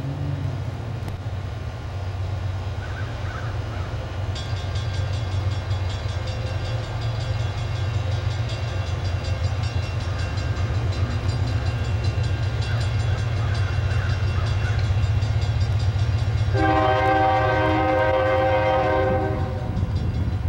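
GE AC4400CW diesel locomotive approaching, its engine a steady low rumble that grows louder as it nears. A bell starts ringing about four seconds in, and near the end the locomotive's horn sounds one long chord for about two and a half seconds.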